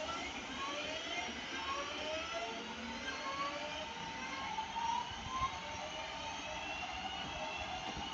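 Train's traction drive whining as it accelerates: several tones rising slowly in pitch together, then repeating in overlapping steps, over a steady running noise.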